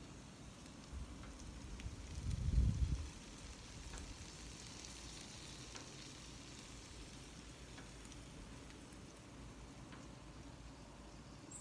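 Faint sizzling of an egg frying in oil on a Blackstone flat-top griddle, with a brief low rumble about two to three seconds in.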